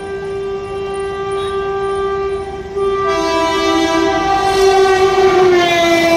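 Passenger train's locomotive horn sounding one long, continuous note. About three seconds in a second tone joins and it gets louder, and near the end the pitch drops as the train passes at speed.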